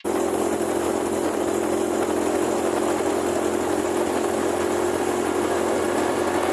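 Honda GL125 single-cylinder four-stroke engine running steadily while riding, with wind and road noise.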